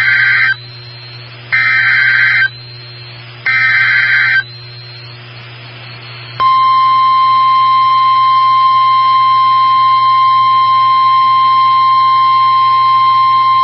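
NOAA Weather Radio EAS/SAME alert header: three roughly one-second bursts of screechy digital data about a second apart. About six seconds in, the steady single-pitch warning alarm tone starts and holds, announcing a new warning, here a flash flood warning.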